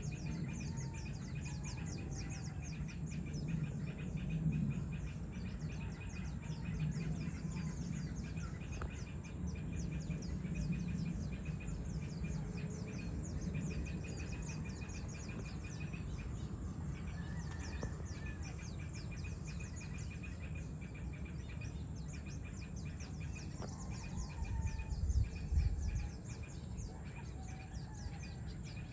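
Evening outdoor ambience: insects trilling steadily in a fast, high pulse, with scattered short bird calls over a constant low distant rumble. A brief louder low rumble swells about 25 seconds in.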